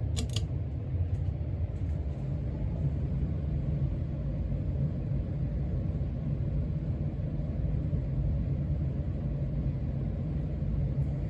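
Casablanca Panama ceiling fan with an XLP 2000 motor running steadily at medium speed: a low, even whoosh and rumble of the spinning blades moving air. A brief click sounds right at the start as the speed is changed.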